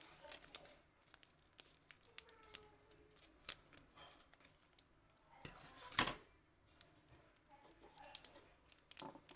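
Scattered small clicks and taps of hands handling a plastic slime pot and the small toys in it, with a louder knock about six seconds in.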